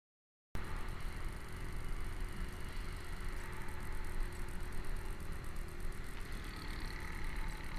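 Silence, then about half a second in road vehicle noise cuts in abruptly: engine running and traffic with a heavy low rumble, steady until it cuts off at the end.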